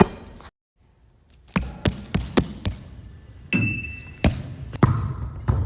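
A ball being struck and bouncing during play: a run of sharp slaps and thuds, several in quick succession, with a short high squeak about three and a half seconds in.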